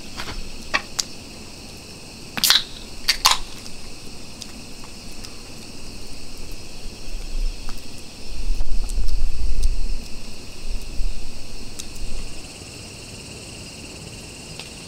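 Crickets trilling steadily in a night-time chorus. Over it come a few sharp clicks and knocks in the first three or four seconds, and a low rumble from about eight to twelve seconds in.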